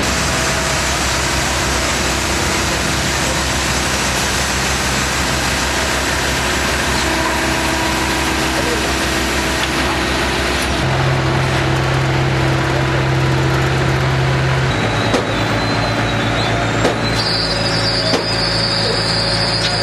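Loud, steady engine noise over a constant hiss. A low hum in it shifts about halfway through and again a few seconds later.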